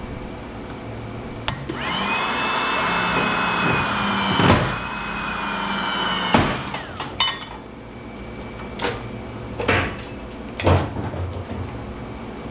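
A machine runs with a high, steady whine for about four seconds and then stops, followed by several sharp knocks about a second apart.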